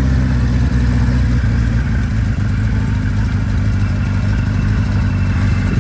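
Kawasaki Z1 motorcycle's air-cooled inline-four engine running at a steady idle, loud and close.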